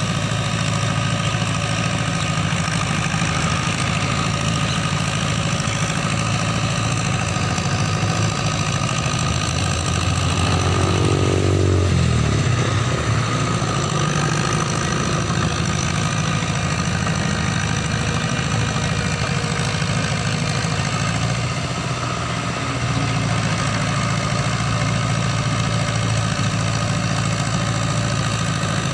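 Ford farm tractor's engine running steadily under load as it pulls a rotary tiller through a flooded paddy field. About eleven seconds in, the engine note rises briefly and then drops back, and it eases off for a moment a little past the twenty-second mark.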